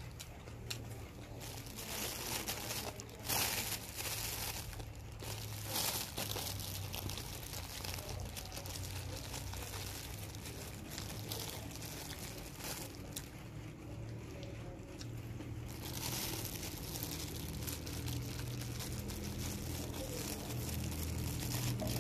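Paper napkin crinkling in irregular bursts as food wrapped in it is handled, over a steady low background hum.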